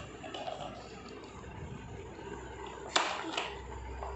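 Large hollow plastic toy train being handled on a tiled floor, with faint rubbing and a sharp plastic knock about three seconds in, then a smaller knock.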